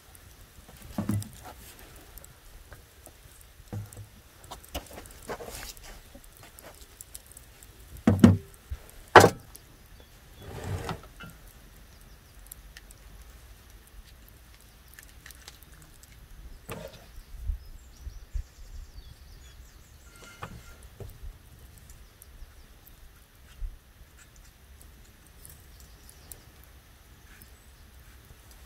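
Food preparation on a wooden table: scattered knocks and clatters of things set down on the boards, the loudest two close together about eight to nine seconds in. After that come fainter, soft sounds of a small knife cutting through tomatoes.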